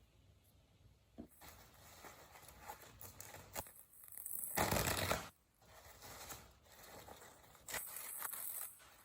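Paper towel being crinkled and torn: scattered soft crackles, with a short loud stretch of tearing noise near the middle and a second, longer one near the end.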